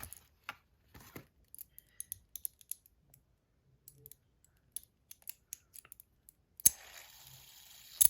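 Light clicks and taps of a fidget spinner's box and packaging being handled and opened. Near the end a sharp click is followed by about a second of sliding scrape and another sharp click.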